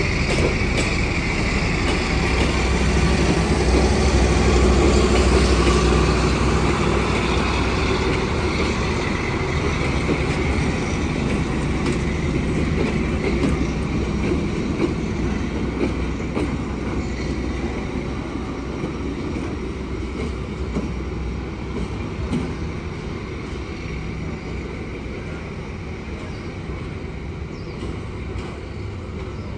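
D19E diesel-electric locomotive and its train running past, loudest about five seconds in and then slowly fading as it moves away.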